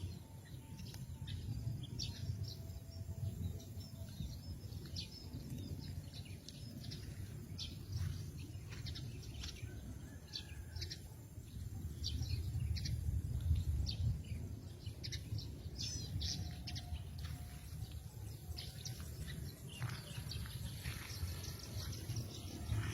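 Small birds chirping, with many short high calls scattered throughout, over a steady low rumble.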